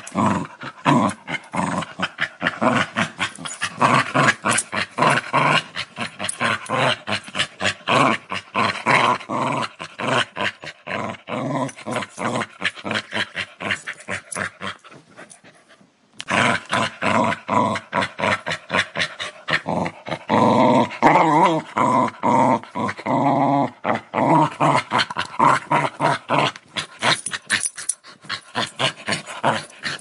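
Angry dog growling, a fast rattling stream of growls that breaks off briefly about halfway. It rises into a longer, wavering-pitched growl a few seconds later.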